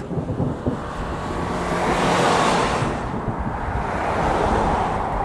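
Wind buffeting the microphone, with a car passing on the road that swells loudest about two seconds in.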